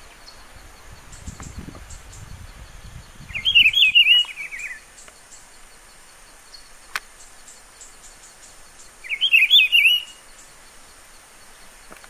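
Rufous-browed peppershrike (pitiguari) singing: two short warbled phrases, the second about six seconds after the first.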